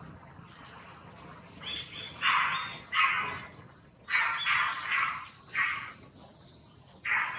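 Macaque monkeys giving a run of short, harsh calls, each lasting under half a second, clustered in the middle with one more near the end.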